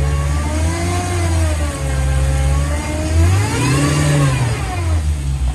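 1996 Jeep Wrangler's four-cylinder engine revving up and down under load. Its pitch climbs and falls twice, the higher rise about four seconds in, heard from inside the doorless cab.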